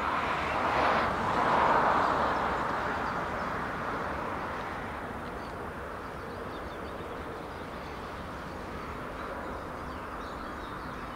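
A vehicle passing close by: a rushing noise that swells, peaks about two seconds in, then fades over several seconds to a steady low background.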